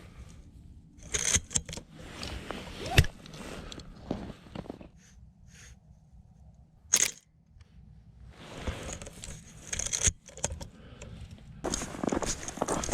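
Handling noises of a Canon AE-1 35mm SLR film camera, with one sharp shutter click about seven seconds in. A denser rustle of movement starts near the end.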